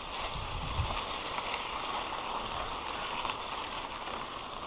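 Mountain bike rolling along an overgrown grassy trail: a steady hiss of tyres and brushing grass, with a few low thumps from bumps in the first second.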